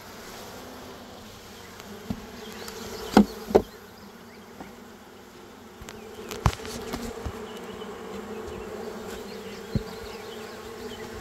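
Honeybees buzzing around an opened hive, a steady hum that grows fuller in the second half. A few sharp knocks cut through it, the loudest two close together about three seconds in.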